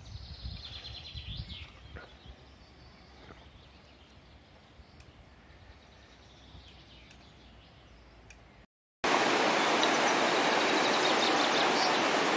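Quiet outdoor ambience with faint bird chirps near the start, then, after a brief break about nine seconds in, the steady, loud rush of a fast-flowing mountain river.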